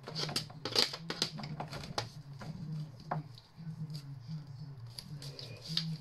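Tongue-and-groove pliers gripping and twisting the casing of a sealed, screwless plastic multi-socket extension lead to force it open: a run of irregular clicks, creaks and scrapes of plastic and metal, over a faint low hum.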